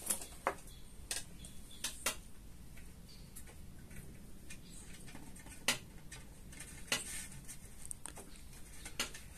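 Scattered light clicks and taps, about eight in all, as a disassembled LED lamp's plastic housing and driver circuit board are handled.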